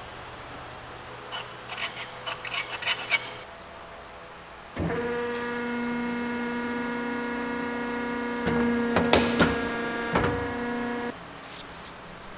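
Steel angle clinking and scraping as it is handled, then a powered metal shear's motor starts about five seconds in and runs with a steady hum. Around nine seconds a burst of loud clatter as the steel angle is cut, and the motor stops about eleven seconds in.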